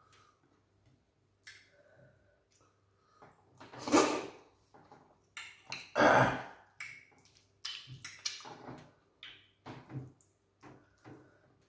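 Close-up eating sounds as okra soup and starch are eaten by hand: irregular wet mouth noises and chewing, with two louder ones about four and six seconds in.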